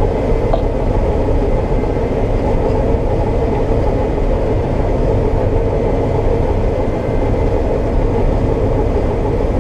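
Combine harvester running steadily while cutting soybeans: a continuous engine and machinery drone with a steady hum.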